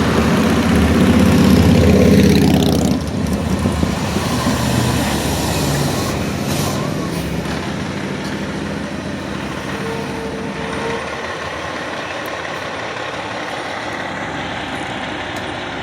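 Fire truck's diesel engine running close by, loudest over the first three seconds with its pitch sliding as it moves. After that, a quieter, steady engine rumble.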